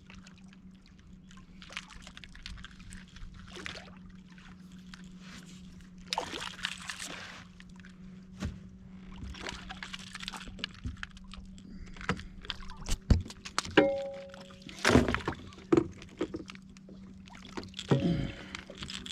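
Knocks and thumps on a boat hull and brief splashing as a caught fish is handled in the boat, over a steady low hum.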